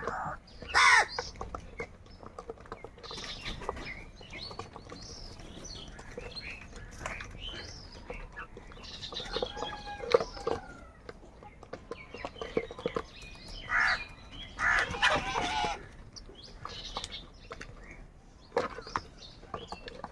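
Crows cawing, several harsh calls scattered through, loudest about a second in and in a cluster around fifteen seconds in, with softer bird calls in between.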